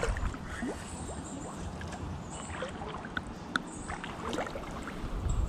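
Wind buffeting the microphone as a low, steady rumble, with a few faint short chirps and ticks scattered through it.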